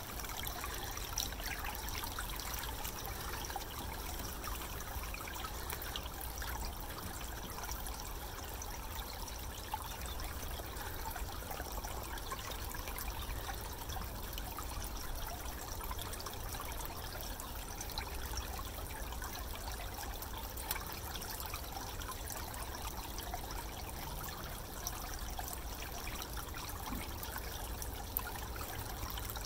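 Water trickling steadily, with faint scattered clicks.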